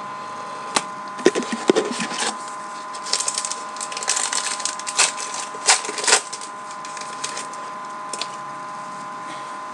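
Trading-card pack and baseball cards being handled: scattered sharp clicks, then a dense crackle lasting about three seconds, over a steady hum.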